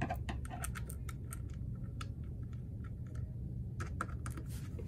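Hand screwdriver turning socket-head screws into an aluminium spindle mount, giving scattered light metallic clicks and ticks at irregular intervals over a low steady hum.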